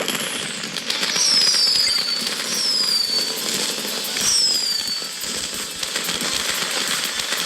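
Fireworks going off in a dense, continuous crackle, with three short whistles that fall in pitch.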